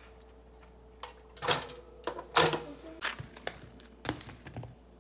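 Clatter and sharp taps of a bagel being handled at a toaster and set down on a paper towel: about eight knocks and clicks, the loudest a second and a half and two and a half seconds in, over a steady faint hum.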